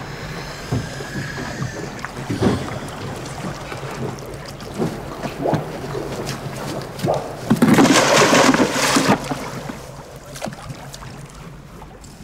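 Ambient sound aboard a boat at sea: a steady low hum, wind and scattered knocks. About seven and a half seconds in comes a loud splash lasting about a second and a half as a freediver drops into the water on a skandalopetra dive.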